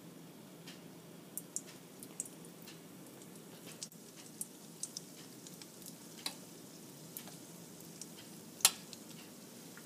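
Cumin seeds and spices sizzling softly in hot oil in a steel wok, with scattered small crackling pops and one sharper pop near the end: a tempering (vaghar) in hot oil.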